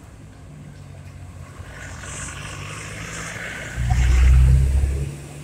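Road traffic: motor vehicles' engines and tyres, with one vehicle passing close by. Its deep engine rumble is loudest about four seconds in and then fades.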